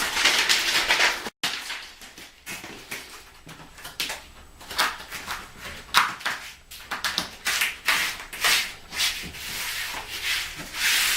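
Hands peeling and pressing self-adhesive edge strips down onto Cerazorb underlayment: a run of irregular rubbing and scraping strokes, with a brief break about a second and a half in.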